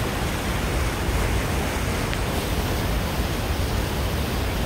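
Steady rushing roar of Niagara Falls, with wind buffeting the phone's microphone.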